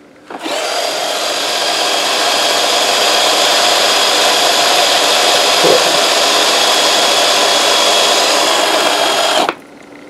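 Roomba 500-series main brush motor and gearbox running at speed with the brushes turning: a steady whir with a high whine, starting just after the beginning and cutting off suddenly near the end.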